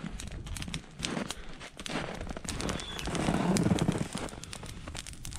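Campfire of dry branches and twigs burning, crackling with irregular sharp snaps, with a low muffled swell about three seconds in.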